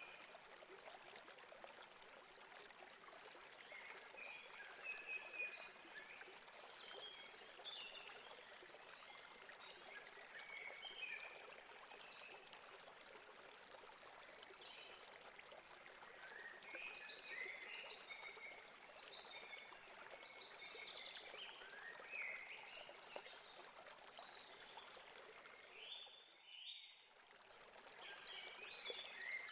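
Faint, steady rush of a stream running over rocks, with birds chirping in short calls now and then throughout. The sound drops out for a moment near the end.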